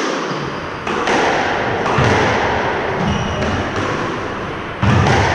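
Squash ball being struck by rackets and hitting the court walls during a rally: sharp hits about once a second, the loudest near the end, each ringing on in the enclosed court's echo.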